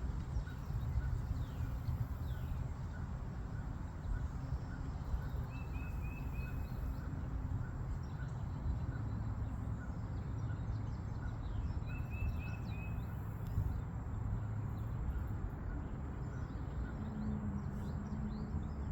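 Wind buffeting the microphone with a steady rumble, while birds chirp; a short trill of quick notes comes about five seconds in and again about twelve seconds in.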